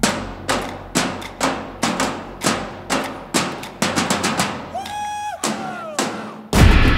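Background music with a steady drum beat of about two hits a second and a held note about five seconds in; near the end it turns suddenly much louder and fuller.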